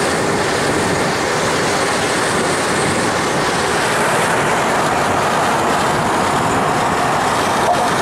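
Steady road noise of a moving vehicle heard from on board: an even rumble and hiss with no breaks.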